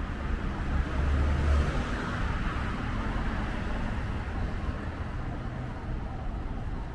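Strong wind buffeting the microphone in an uneven low rumble, heaviest about a second in, over the steady noise of road traffic that swells for a moment about two to three seconds in.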